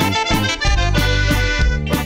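Instrumental passage of a corrido played by a small band: saxophone melody over electric bass guitar and drums with a steady beat.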